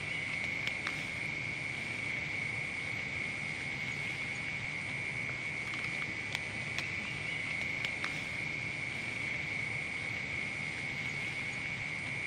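Crickets trilling steadily in one continuous high chorus, with a few faint clicks scattered over it.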